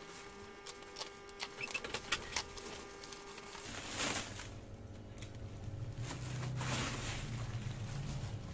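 Bubble wrap and a plastic bag crinkling and rustling as they are pulled off a folded plastic storage box, with many sharp crackles in the first few seconds and fuller rustling after. A faint steady tone in the background cuts off a few seconds in.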